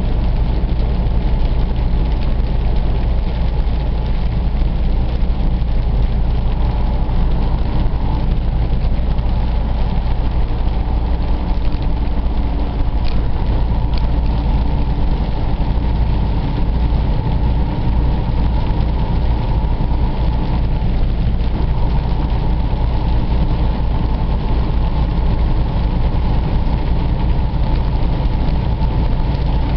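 Steady drone of a Freightliner Cascadia semi truck cruising on a wet highway, heard inside the cab: low engine hum under an even wash of road and rain noise.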